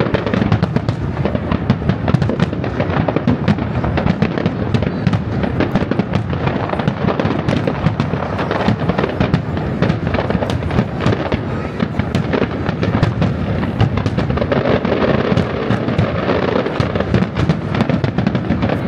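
Professional fireworks display: a dense, continuous barrage of aerial shell bursts, bangs and crackle with no let-up.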